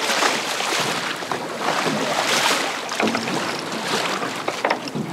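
Sea water splashing and sloshing around a small fishing boat, in uneven surges, with wind on the microphone. A few sharp knocks come in the second half.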